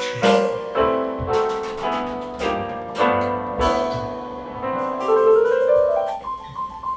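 Piano music: chords struck about twice a second, then a rising run of notes about five seconds in, ending on a few soft, higher notes.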